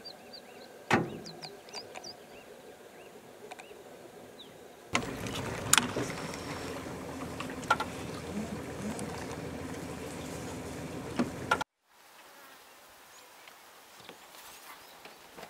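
Outdoor nature ambience changing at each cut: faint short high chirps with a sharp click about a second in, then a louder noisy stretch with scattered clicks from about five seconds, a moment's dropout near the end, and a quieter stretch after it.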